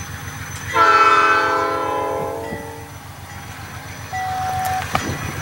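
Dash 8-32B locomotive's five-chime P5 air horn sounding one chord blast of about two seconds, over the low, steady running of the diesel. A short single-tone beep sounds near the end.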